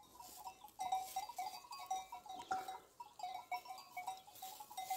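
Small bells on grazing sheep clinking faintly and irregularly, several short ringing notes a second.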